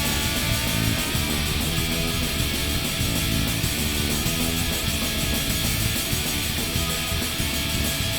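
Live rock band playing a song loudly, electric guitar strumming to the fore.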